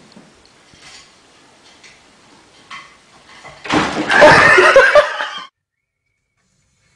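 A sudden loud clatter of furniture being knocked over, with a burst of laughter over it, lasting a little under two seconds, about halfway in. Before it there are only a few faint knocks.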